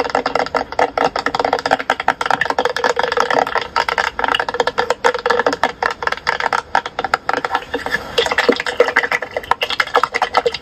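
A dense, rapid crackle of many small clicks and rattles, with a faint steady tone underneath.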